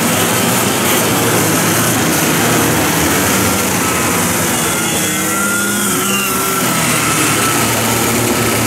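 A pack of racing karts running together on the formation lap, their engines making a steady buzz. Individual engines rise and fall in pitch as they pass, most clearly in the second half.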